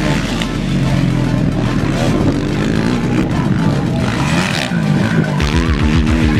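Motocross motorcycle engines revving, their pitch rising and falling, with music with a steady beat coming in near the end.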